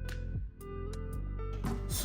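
Background music: held pitched notes that change every half second or so over a steady low bass.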